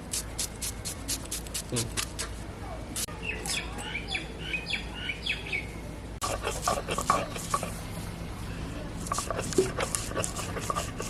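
Birds chirping in a short run of calls about three to five seconds in, over many quick, sharp scraping or clicking strokes.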